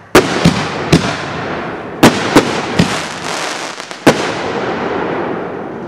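Black Cat Diablo artillery shells going off: a rapid series of about seven sharp bangs over four seconds, the loudest about two seconds in, each trailing off in a fading rumble.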